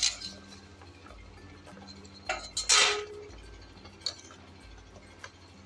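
Corn kernels boiling in water in a steel pot on a high flame, a faint steady background. Two sharp metal clinks come a little past halfway, the second ringing briefly, and a fainter one follows.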